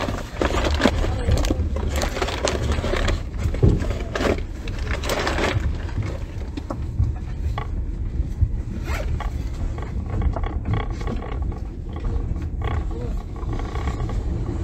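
Steady low rumble of a passenger train running, heard from inside a sleeping-car compartment, with bursts of rustling and scraping over roughly the first six seconds.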